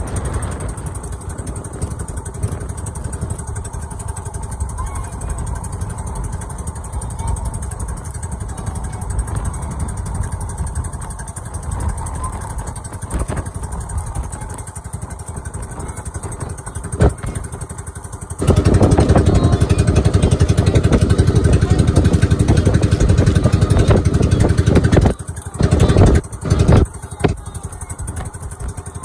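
An outrigger boat's engine runs steadily while the boat is under way. About two-thirds of the way in, a much louder rushing of wind on the microphone takes over for several seconds, then comes back in a few short gusts.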